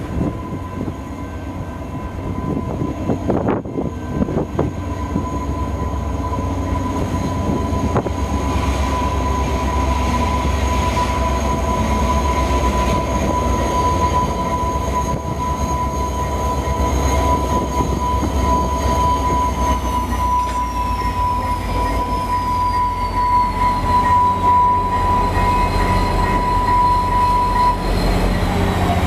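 VIA Rail F40PH-2 diesel locomotive arriving and slowing for a station stop, its engine drone growing louder as it comes alongside. A steady high tone holds until near the end, and a higher whine drops in pitch as the train slows.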